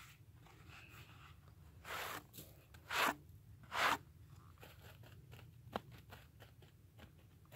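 Three short crinkly rustles as a bag is handled, about a second apart, followed by a few light clicks.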